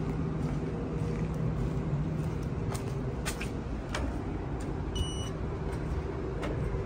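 Steady low engine rumble of a truck yard, with a few footsteps on concrete. About five seconds in, a short electronic beep sounds from a door push-button.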